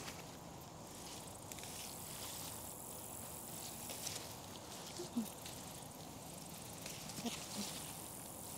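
Leaves and stems of garden herb plants rustling and crackling as they are handled and picked, with a sharp snap about five seconds in, over outdoor ambience.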